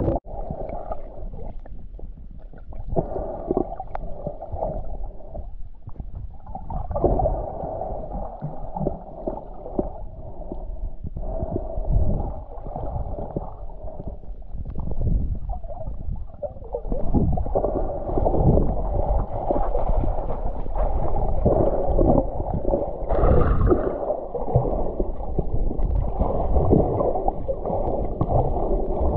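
Muffled gurgling and sloshing water, continuous and uneven, growing fuller in the second half.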